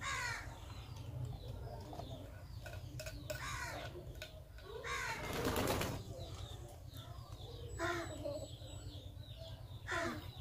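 Birds chirping and calling in short, scattered calls, with a louder rustling burst about five seconds in.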